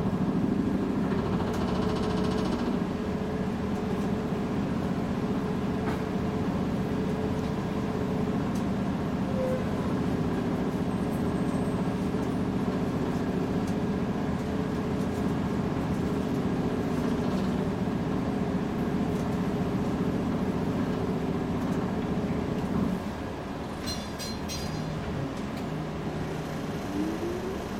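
A UTDC CLRV streetcar running along the track, heard from inside the passenger cabin: a steady hum over the rumble of wheels on rail. About 23 s in the sound drops a little quieter, and near the end a short rising whine comes in.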